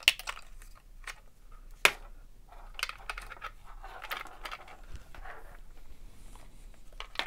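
Plastic clicks and rustling of wires as small connector plugs and wiring are worked loose from a cordless vacuum's plastic housing half. Sharp clicks stand out at the start and, loudest, about two seconds in, with softer scraping and handling noise between.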